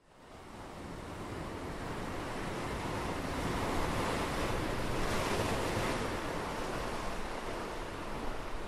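Ocean surf washing in, a steady rush of waves that fades in and swells about four to six seconds in, with wind buffeting the microphone.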